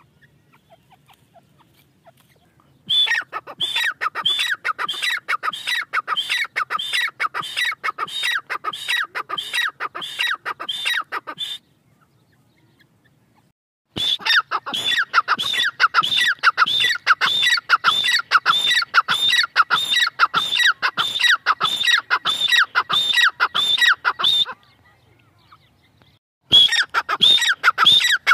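Grey francolin calling: fast runs of loud, high, shrill notes repeated about three times a second, in three bouts with short pauses between.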